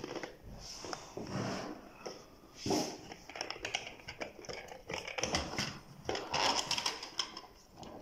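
Plastic cover of a weatherproof wall socket being handled and pressed into place: irregular clicks, taps and scrapes of plastic on plastic and against the wall.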